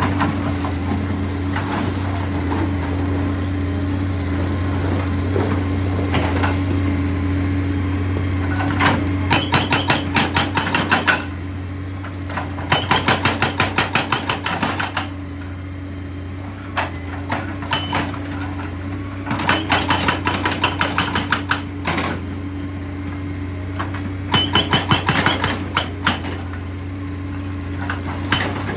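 Excavator-mounted hydraulic rock breaker hammering rock in four bursts of a couple of seconds each, rapid evenly spaced blows. Under it the excavator's diesel engine runs with a steady drone.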